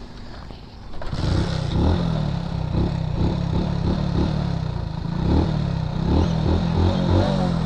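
A motorcycle engine that had stalled suddenly catches about a second in and keeps running, its revs rising and falling unevenly.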